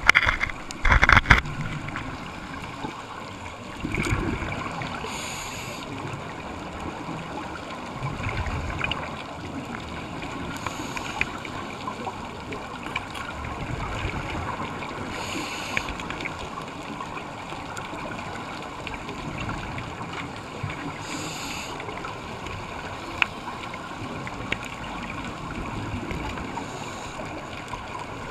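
Scuba regulator breathing heard underwater through a camera housing: a short hiss of inhalation every five or six seconds, with the gurgle of exhaled bubbles between, over a steady underwater rush. A few sharp knocks at the start.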